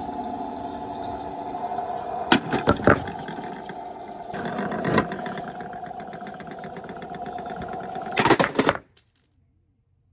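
Small electric motor of a toy washing machine running with a steady whine, with a cluster of sharp knocks and rattles now and then. It cuts off suddenly about nine seconds in.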